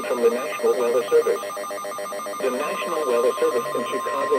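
A voice reading an Emergency Alert System special marine warning, overlaid with a rapid, steady pulsing buzz. A steady high tone comes in a little past halfway through.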